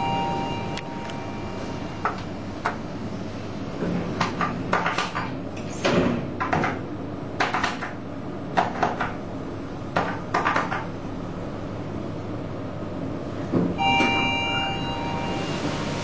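Sharp clicks of an Otis GeN2-Regen elevator's car call push buttons being pressed in quick pairs, a double press that cancels a registered floor call, over the car's steady hum. A short two-note electronic tone sounds right at the start and again about two seconds before the end.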